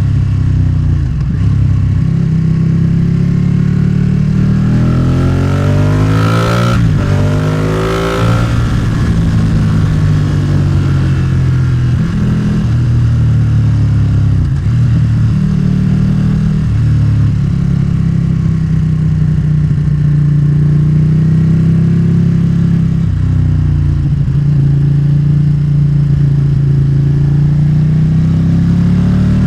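Motorcycle engine running under way, its pitch climbing and dropping again and again as the bike accelerates and changes gear. About six seconds in there is a brief sweep of another engine sound rising and falling over it.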